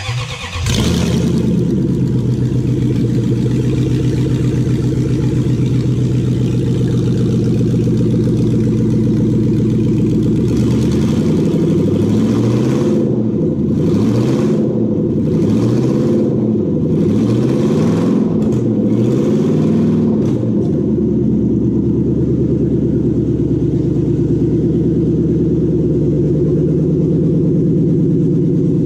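Toyota 1UZ-FE VVT-i quad-cam V8 cranking and firing right away on its first start of the day, then idling on bare exhaust manifolds with no exhaust system fitted. From about ten seconds in the throttle is blipped several times, the revs rising and falling, before it settles back to a steady idle.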